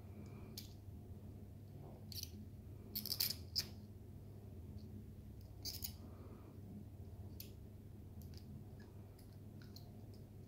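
Plastic Rubik's Snake twist puzzle being turned by hand, its segments clicking as they rotate: scattered sharp clicks, with a quick cluster about three seconds in the loudest, over a low steady hum.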